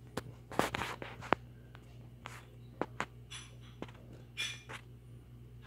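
Faint scattered clicks and short rustles of handling, over a steady low hum.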